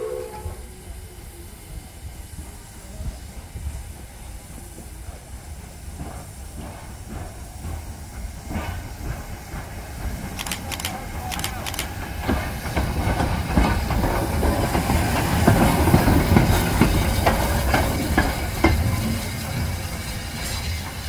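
Steam locomotive at work: hiss and running noise build to their loudest about three-quarters of the way through, then ease off. A few sharp metallic clanks come about halfway through.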